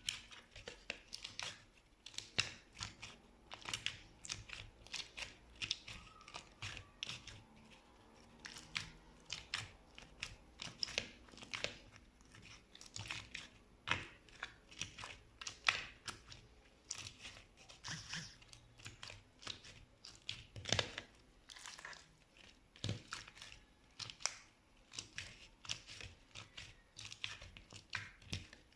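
Slime being squeezed and worked by hand, giving a steady run of irregular crackling clicks and pops.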